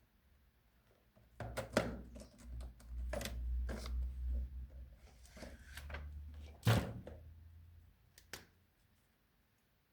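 Handling noise from craft work at a table: a run of irregular taps and knocks over a low rumble of the surface being bumped. The loudest knock comes about two-thirds of the way in.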